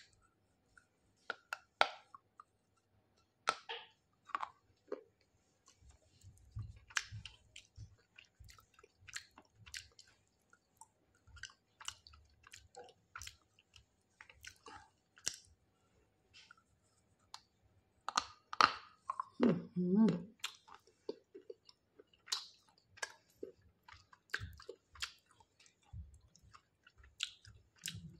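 Chewing and crunching a very hard piece of baked clay: irregular crisp cracks and clicks between quiet gaps, with a louder run of crunches about eighteen seconds in.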